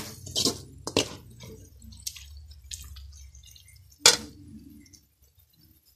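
Perforated steel spoon stirring a thick onion-tomato masala in a metal pot, scraping and clinking against the pot with soft wet squelches. A sharp clank about four seconds in is the loudest.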